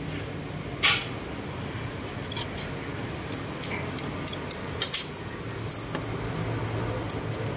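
Small metal clicks and taps from handling a turbocharger's wastegate actuator rod and lock clip as they are fitted to the wastegate arm, with one sharp clink about a second in. A thin high squeal runs for under two seconds near the middle, over a steady low hum.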